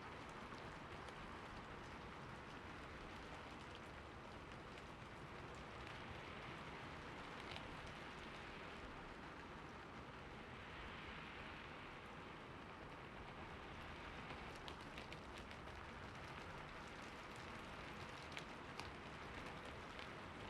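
Steady rain falling on a rooftop, an even hiss with scattered sharper drops ticking, a few louder ones near the end.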